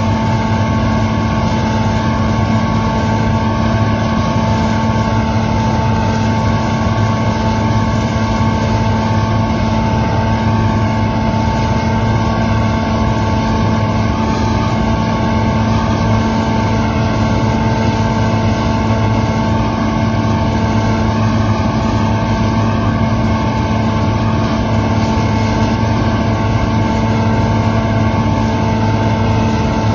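Claas Lexion combine harvester running steadily under harvest load, its engine and machinery giving an unchanging hum with several steady tones.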